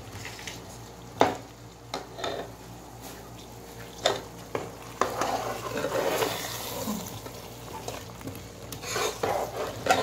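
Metal spoon stirring potato chunks and peas through a hot masala in a cooking pot, knocking and scraping against the pot several times, with the masala sizzling underneath.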